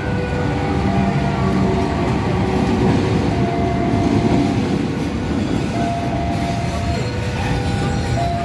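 A KAI CC 206 diesel-electric locomotive hauling a cement freight train passing close by: the engine running and the wheels of the loaded wagons rumbling over the rails, loud and steady. A few held steady tones sound on and off over the rumble.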